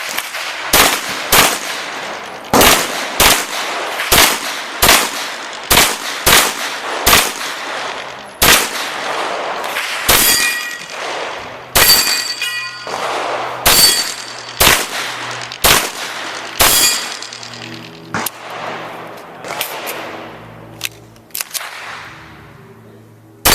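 Pistol shots fired in quick pairs during a practical-shooting stage, about twenty in all. Steel targets ring after several of the hits. The shots thin out to a few fainter cracks near the end.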